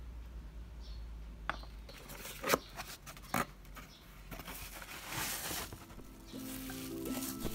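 A few sharp knocks as a glass bowl is set down on a desk, then cardboard box flaps and bubble wrap rustling as a parcel is opened. Soft music comes in near the end.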